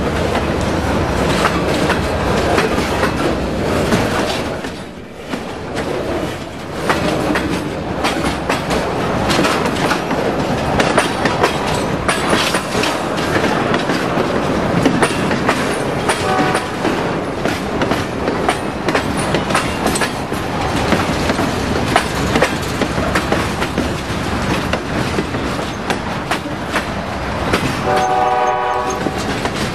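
Freight train cars rolling past: steady wheel-on-rail noise with rapid clicking of wheels over rail joints, easing briefly about five seconds in. A short horn blast sounds near the end.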